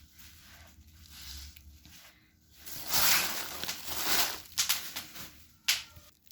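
Plastic packaging rustling and crinkling as a wrapped item is handled and unwrapped, loudest in the middle, with one sharp click near the end.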